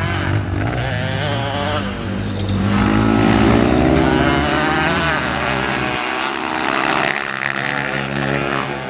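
Dirt bike engine revving hard, its pitch rising and falling as the throttle opens and closes.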